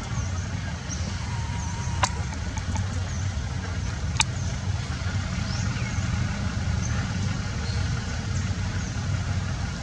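Steady low rumble outdoors, with two sharp clicks about two and four seconds in and faint, brief high chirps scattered through.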